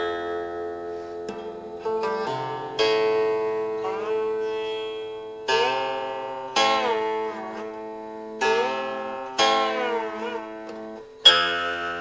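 Instrumental music on a plucked string instrument: notes and chords struck every second or so, each fading away, with several notes sliding up and back down in pitch after the pluck.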